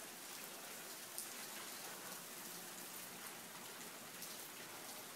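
Steady rain falling: an even, faint hiss with a few louder drop ticks here and there.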